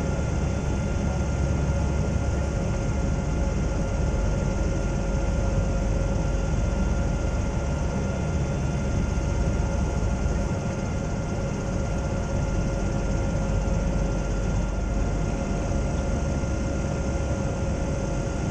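Steady in-flight drone of a Zeppelin NT airship, heard inside the cabin. It is the airship's piston engines and propellers: an even deep rumble with a couple of steady hum tones above it.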